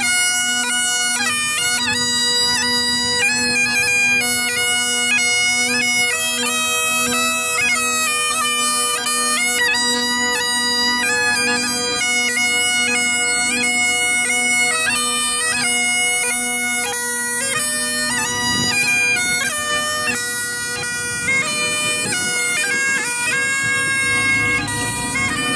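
Bagpipes playing a tune over a steady drone, the melody moving from note to note several times a second.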